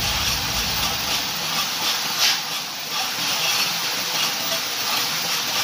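TIG welding arc on an aluminium square tube: a steady hiss, briefly brighter a little after two seconds in.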